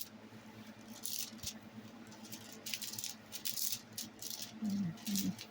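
Plastic cover sheet on a sticky diamond-painting canvas crinkling and rustling in short, irregular bursts as the canvas is handled and smoothed flat to work out the creases.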